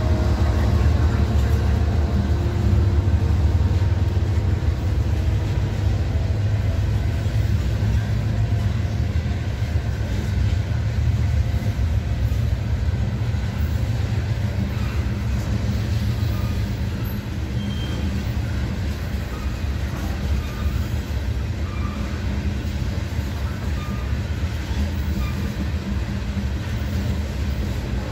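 Freight train passing close by: the steady low rumble of covered hopper cars rolling over the rails. In the first few seconds the engine tones of the departing locomotive fade out under the rumble.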